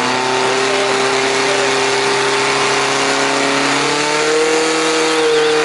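Portable fire pump engine running at high revs under load, pumping water out through the attack hoses; its pitch rises a little about four seconds in.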